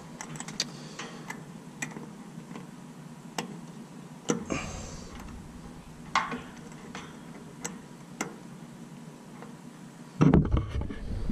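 Scattered light clicks and ticks of multimeter probe tips and spade-terminal wire ends being handled at a condenser's run capacitor and wiring, over a steady low hum. A louder click with a brief rustle about four seconds in, and a sudden loud low rumble near the end.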